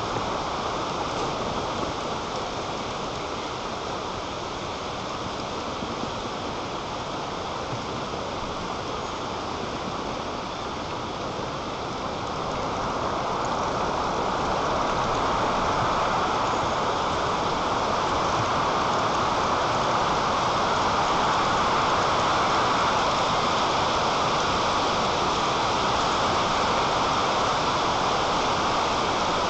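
Strong wind rushing through the treetop and over the nest-camera microphone: a steady noise that swells louder about 13 seconds in.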